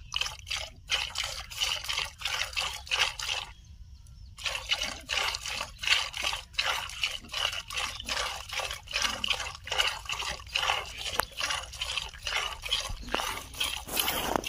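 Cow being milked by hand: jets of milk squirting into a plastic bucket in short rhythmic spurts, about two or three a second, with a brief pause about three and a half seconds in.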